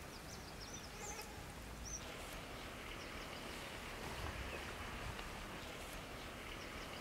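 Faint outdoor ambience: a steady background hiss with a few short, high chirps in about the first two seconds.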